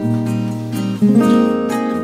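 Background music: acoustic guitar strumming chords, changing chord about a second in.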